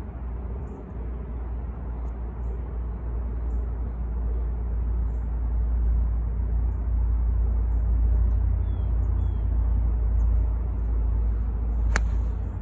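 A steady low rumble throughout, then near the end a single sharp click of an 8-iron striking a golf ball off the turf.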